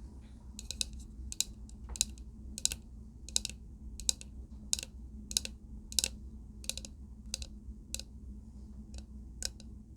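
A steady series of light, sharp clicks, about three every two seconds, over a low background hum.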